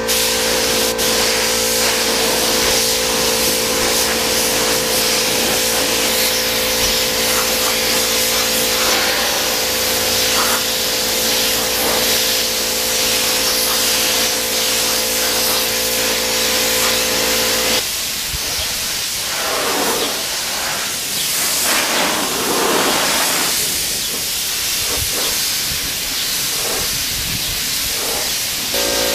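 Compressed-air gravity-feed spray gun laying down yellow paint, giving a loud, steady hiss of air and atomised paint over a low steady hum. About two-thirds of the way through the hum drops out, and from then on the hiss comes and goes in bursts as the trigger is pulled and released between passes.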